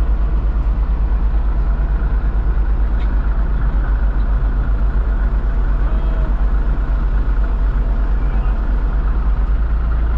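Swather engine running steadily, heard from inside the cab, with a strong low throb and no change in speed.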